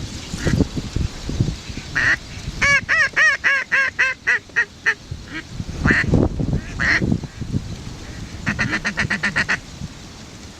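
Duck quacking: a descending run of about a dozen quacks that fade away, then a couple of single quacks, and a quick string of rapid quacks near the end. Wind rumbles on the microphone underneath.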